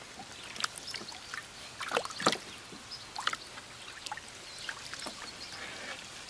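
Shallow water in a plastic wading pool sloshing and splashing as a puppy wades and paws through it, in short irregular splashes, the loudest about two seconds in.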